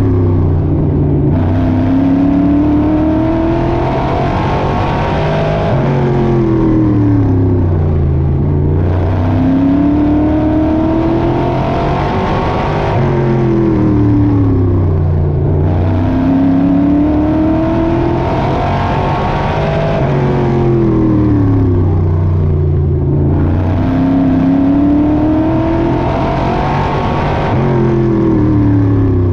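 Pavement modified race car's GM 604 crate V8, heard from inside the cockpit while lapping a short oval. The engine note climbs as it accelerates down each straight and drops sharply as the driver lifts into each turn, about every seven seconds.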